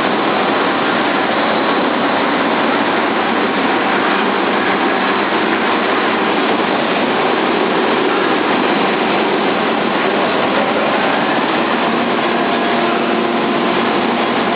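ERNST wide belt sanding machine running: a loud, steady mechanical noise with no change in pace.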